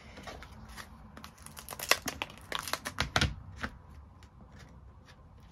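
Plastic art marker pens clicking and clacking against one another as a row of them is shuffled and rearranged by hand, with a quick run of sharp clicks in the middle and a light handling rustle around it.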